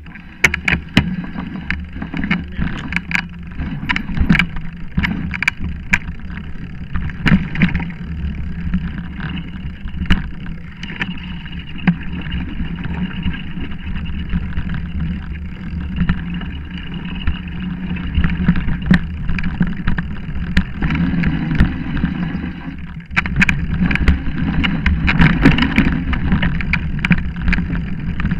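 Mountain bike riding down a rough dirt trail, picked up by a camera mounted on the bike: a continuous rumble of tyres on the ground with frequent sharp rattles and knocks as the bike goes over bumps and roots. The noise eases briefly about three-quarters of the way through, then comes back.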